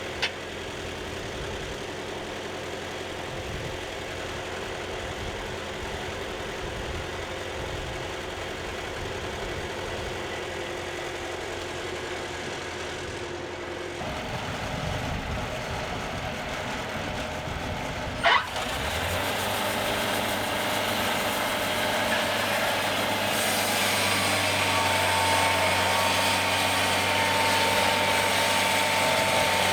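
An engine running steadily, its sound changing abruptly several times, with a sharp knock near the start and another about 18 seconds in. A steady high whine joins in the last few seconds.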